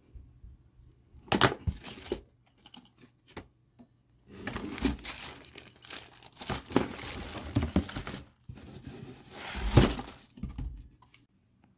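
Packaging and chair parts being handled during unboxing: plastic wrapping rustling and tearing, with scattered clinks and knocks. The loudest knocks come about a second and a half in and near the end.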